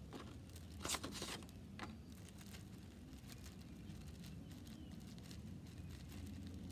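Plastic zip-top bag crinkling and clicking as it is picked up and handled, loudest in a short cluster about a second in, then a few scattered light ticks over a faint low background rumble.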